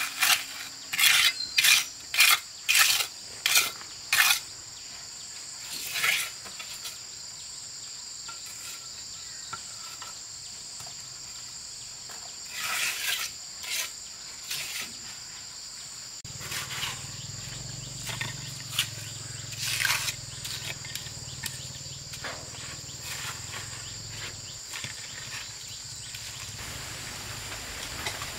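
Steady high-pitched insect chorus. A quick run of short, sharp strokes sounds in the first few seconds, with a few more later, and a low hum comes in about halfway and stops a few seconds before the end.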